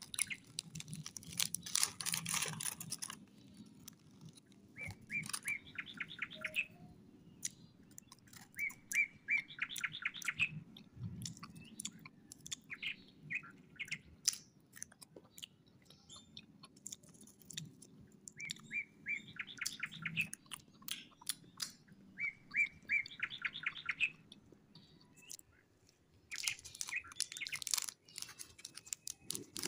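Crunching and chewing of a butter biscuit, heard as many small crisp clicks, with plastic wrapper crinkling in the first few seconds and again near the end. A bird sings four short, rapid chirping trills in the background.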